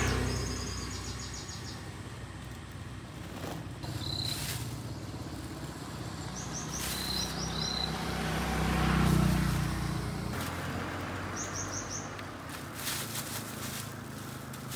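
A motor vehicle's engine passes by twice, swelling at the start and again about nine seconds in. A small bird chirps in quick runs of a few high notes several times.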